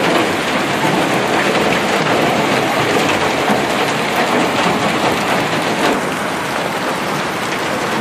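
Heavy hail pelting the ground, a steady dense clatter and hiss of hailstones striking and bouncing.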